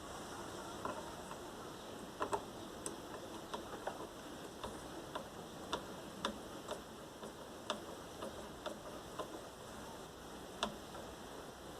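Faint, irregular small clicks and taps, one or two a second, of small screws being picked through and handled on a workbench.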